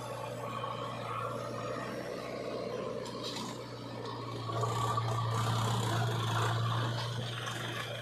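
Diesel engines of a backhoe loader and a farm tractor running with a steady low drone, which swells louder about halfway through as the loaded tractor pulls its soil-filled trolley away.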